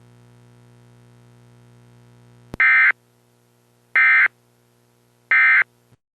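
Emergency Alert System end-of-message signal: three short, loud bursts of SAME digital data tones, a little over a second apart. They are preceded by a faint steady low hum and a click.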